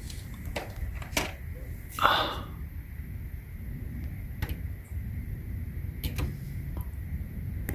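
Handling noise from a power-bank USB cable being fitted to the emergency charging port under a smart deadbolt: a few light clicks spread out, and a brief rustle about two seconds in.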